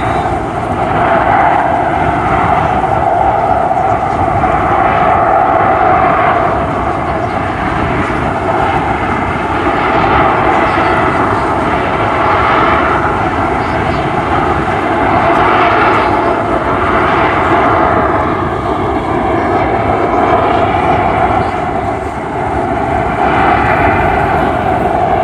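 AV-8B Harrier's Pegasus turbofan running loud and steady as the jet hovers, with steady jet noise that swells and eases slowly.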